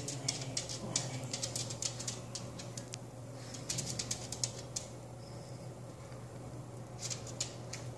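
Small dog's toenails clicking and tapping on a tile floor in quick, irregular bursts as it shuffles around, over a steady low hum.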